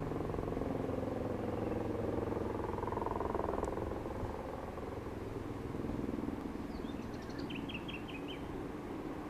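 Helicopter in flight: the rapid, steady beat of its rotor blades over an engine hum, easing a little after about four seconds. A bird chirps a quick series of notes near the end.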